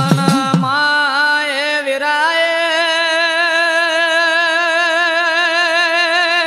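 A male singer holds one long drawn-out note with a slight waver in a Gujarati reghdi devotional song, stepping up in pitch twice in the first two seconds. The percussion stops about half a second in.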